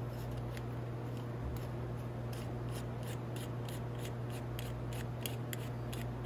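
Light, sharp clicks of small metal carburetor parts being handled as the top is fitted onto the carburetor. There are a few at first, then about three a second from a couple of seconds in, over a steady low electrical hum.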